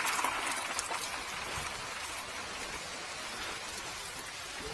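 Rain falling on a wet wooden deck and the trees around it: an even hiss of patter with many small drip ticks, slowly easing.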